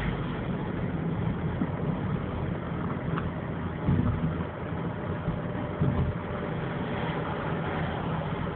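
Steady car engine and road noise heard from inside a moving car's cabin, with two brief louder swells about four and six seconds in.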